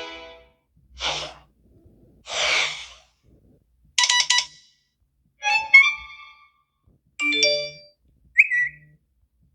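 A run of short iPhone alert tones played one after another with silence between them: the end of a tone fading out, two quick whooshes, then four brief electronic chimes and note figures, the last a short blip near the end.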